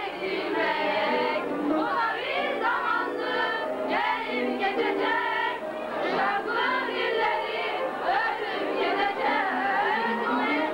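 A group of schoolgirls singing a song together as a choir, one of them singing into a handheld microphone.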